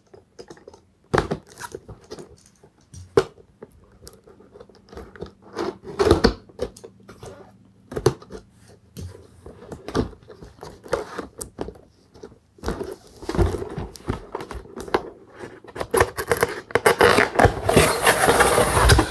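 Cardboard packaging being opened by hand: scattered clicks and scrapes as the box flap is worked open, then a long rough scraping rustle from about two-thirds of the way in, loudest near the end, as the inner tray slides out of the printed cardboard sleeve.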